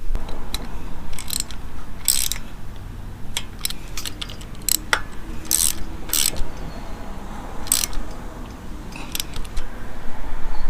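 Socket ratchet clicking in short, irregular strokes as cover bolts are run in over a new gasket.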